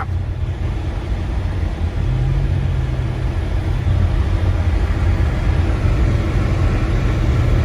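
Steady low rumble of a 2019 Subaru driving on a snow-covered road, heard from inside the car: engine and tyre noise.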